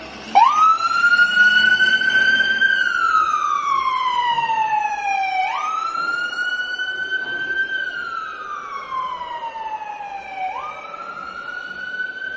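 Ambulance siren wailing: it starts suddenly, then repeatedly glides slowly up and down in pitch, jumping back up after each fall, about five seconds per cycle. It grows fainter as the ambulance drives away.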